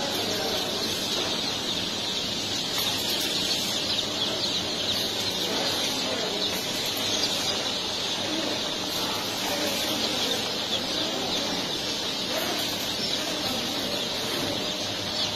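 A crowd of day-old layer chicks peeping continuously: a dense chorus of short, high chirps, with a steady low machine hum underneath.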